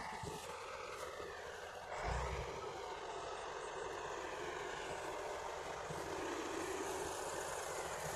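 Heavy construction machinery running on a diesel engine, with the engine pitch shifting slightly and a brief low thud about two seconds in.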